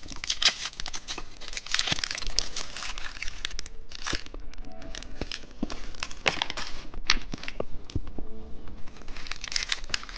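Candy wrappers crinkling and tearing as sweets are unwrapped by hand, as a dense run of irregular crackles.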